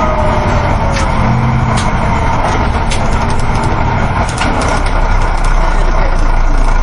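Interior of a moving coach bus: the engine's steady drone and road noise, with a few light clicks and rattles scattered through.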